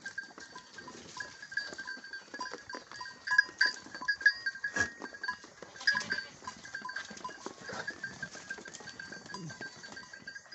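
Goats jostling and eating at a feeding trough: many small clicks and knocks throughout, with a steady high chirping in the background.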